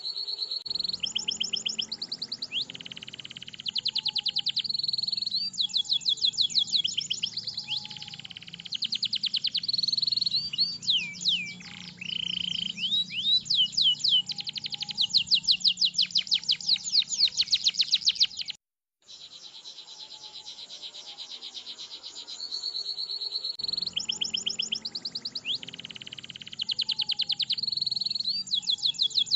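Domestic canary singing a long, continuous song of fast rolling trills and rapid repeated high chirps. The song drops out completely for a moment about two-thirds of the way through, then goes on.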